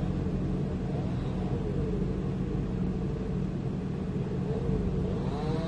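Heavy diesel engine of earthmoving machinery running, a low steady rumble, its pitch dipping and rising again twice.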